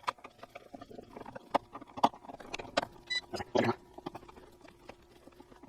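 Hands working wires and an electrical outlet into a wall box, making irregular clicks, taps and rustles, over a faint steady hum.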